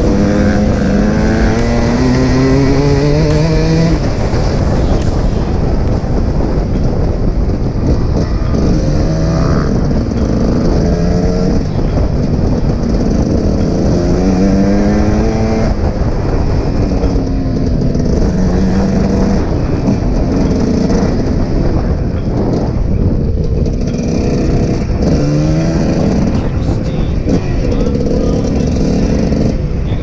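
Dirt bike engine accelerating hard through the gears: the pitch climbs, drops at each upshift and climbs again, over and over, with the throttle rising and falling between pulls.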